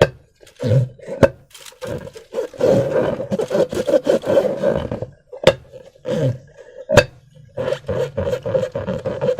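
Slime-filled rubber balloons being squeezed and worked by hand, giving a steady pitched squeaking, squelching rasp in stretches with short breaks, and a few sharp clicks.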